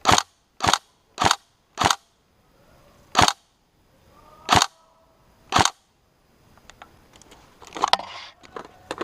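Airsoft electric rifle, a Tokyo Marui SCAR-H, fired in single shots: seven sharp snaps in about six seconds at uneven intervals. Near the end comes a run of lighter clicks and rustling.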